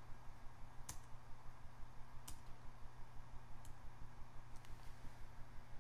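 A few sharp, isolated computer mouse clicks, one or so every second or two, over a faint steady low hum.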